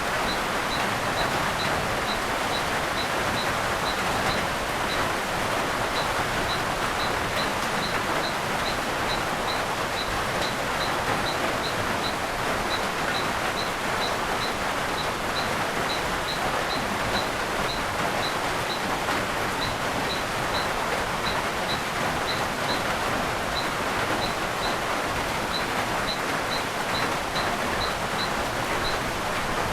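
Steady rainfall pattering through rainforest foliage. Over it, a faint short high chirp repeats about twice a second, pausing now and then.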